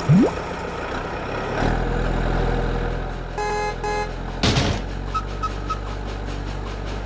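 Cartoon vehicle sound effects: a quick rising swoop at the start, a low engine hum from about a second and a half in, and two short horn toots near the middle. A brief burst of hiss follows the toots.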